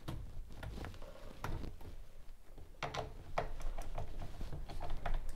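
Light irregular clicks and scrapes of a screwdriver and wires being worked at the terminals of an open consumer unit.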